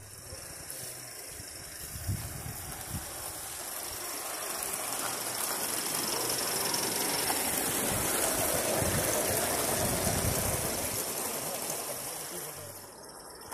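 Live-steam Gauge 1 model of a BR Standard tank locomotive running past with its train: a steady hiss of steam with occasional low knocks, growing louder over the first several seconds and easing off near the end. This is its first run after modifications meant to improve steaming and smooth running.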